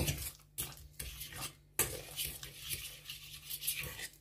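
A utensil stirring a thick mash of potato and egg in a metal pressure-cooker pot, with irregular scrapes and knocks against the pot's sides and bottom.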